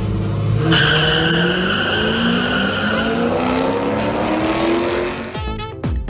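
Two cars launching in a drag race, their engines revving hard and climbing steadily in pitch as they accelerate down the strip. About five seconds in it cuts to music with a beat.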